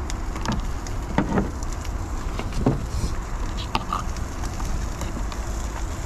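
A knife cutting lettuce leaves on a plastic cutting board: a handful of short crisp cuts and taps, mostly in the first four seconds, over a steady low rumble.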